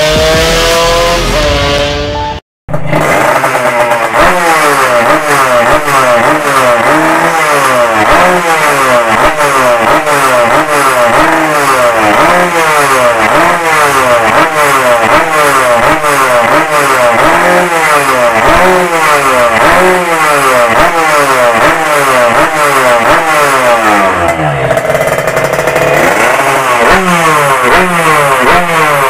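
Yamaha RX-King two-stroke single-cylinder engine, fitted with a genuine YZ ignition magnet, being revved hard under test: the throttle is blipped about once a second, so the pitch climbs and falls again and again. Around twenty-four seconds in the revs sag for a moment before the blipping resumes. The first couple of seconds, before a short cut, hold engine sound from the street.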